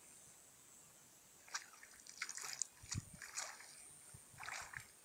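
A cast net is hauled up out of shallow water: irregular splashing and dripping that begins about one and a half seconds in and comes in several bursts.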